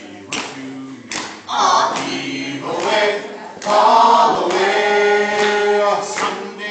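Mixed group of men and women singing a sea shanty a cappella in harmony, swelling into a long held chord about halfway through.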